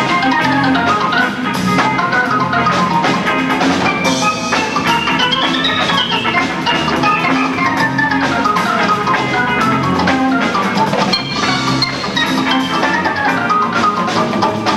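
Funk band playing live: a lead instrument runs quickly up and down in fast note runs over a steady bass line and drums.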